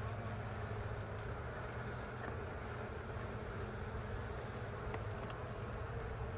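Honeybees buzzing steadily around an open hive as its frames are worked, a low continuous hum.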